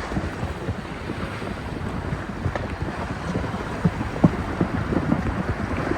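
Wind buffeting the microphone over sloshing water, with a few light knocks and splashes.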